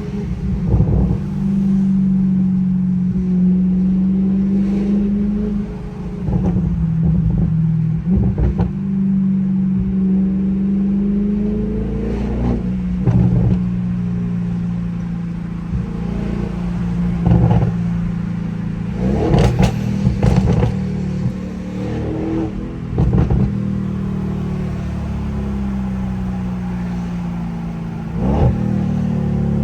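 Audi S8's twin-turbo V8 with a straight-piped exhaust behind the downpipes, droning steadily while driving in traffic, its pitch rising and falling gently with light throttle. About nine short, sharp noises cut through the drone.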